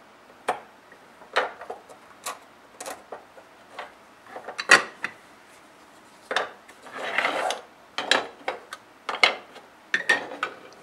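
Hard 3D-printed plastic featherboard parts and a hand screwdriver being handled on a wooden workbench: a string of sharp clicks and knocks as pieces are picked up, turned and set down, with a short scraping rub about seven seconds in.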